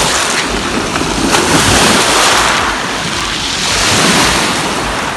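Sea waves breaking and washing up on the shore, the surf swelling twice.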